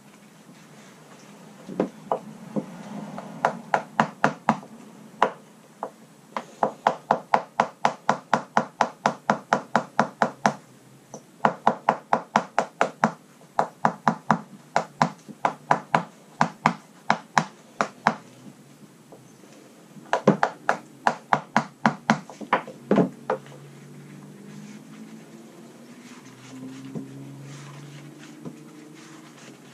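Rapid, sharp knocking strokes, about three or four a second in runs of several seconds, from hand tools working old traction-mat foam and marine adhesive off a Kawasaki STX-12F jet ski's gel-coated deck. The strokes stop a little over twenty seconds in.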